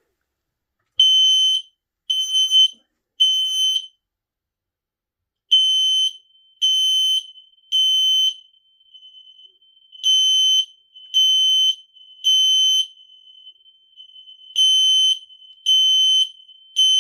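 AS3786 interconnected residential smoke alarm sounding on its test button: a loud high-pitched beep in groups of three, the temporal-three evacuation pattern, four groups in all starting about a second in. In the middle gaps a fainter steady tone at the same pitch carries on.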